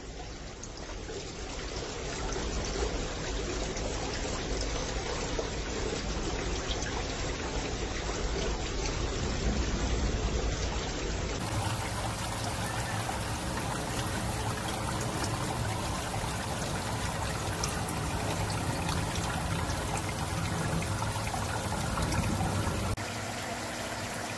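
Steady trickle of running water in an aquarium tank. About eleven seconds in, the sound becomes fuller and brighter.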